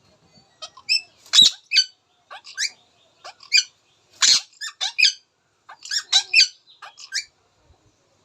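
Indian ringneck parakeet giving a rapid run of short, high-pitched chirps and squeaks, with the loudest calls about a second and a half in and again about four seconds in.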